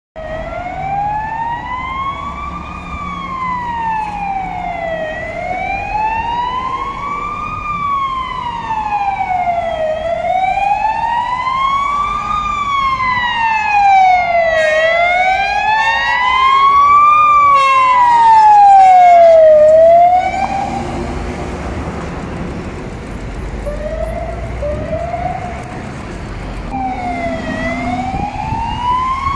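Fire engine sirens wailing in a slow rise and fall about every five seconds, getting louder as the truck approaches, with a second siren overlapping in the middle. The wail stops about twenty seconds in, leaving city traffic noise, and a siren starts up again near the end.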